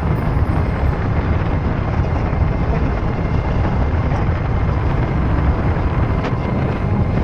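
Motorcycle riding at speed, heard from a camera clamped to the bike: a steady, loud rush of wind buffeting and road and engine noise, heaviest in the low end.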